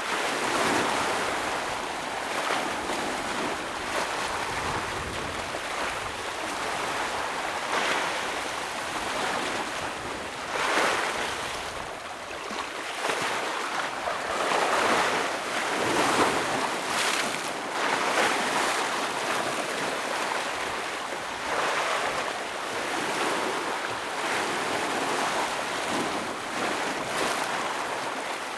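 Ocean waves breaking and washing over rocks along the shore, a continuous rush of surf that swells with a fresh surge every few seconds.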